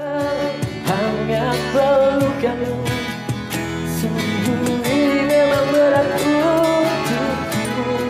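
A man singing a slow Indonesian ballad with a held, wavering melody over instrumental backing, his voice picked up by a clip-on lavalier microphone through a small mixer.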